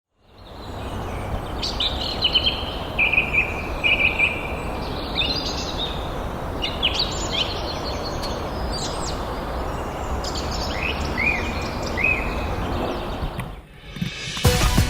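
Birds calling and singing in a string of short chirps and trills over a steady rushing noise; music comes in near the end.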